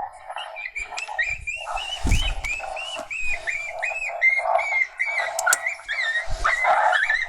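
A rapid run of high, yipping animal calls, about three a second, with a low thump about two seconds in.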